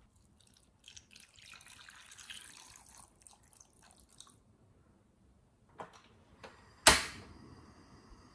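Water poured from a glass measuring cup into a saucepan of rice cakes and fish cakes, splashing for about three and a half seconds. A couple of light clicks follow, then one loud sharp click near the end, after which a faint steady hiss remains.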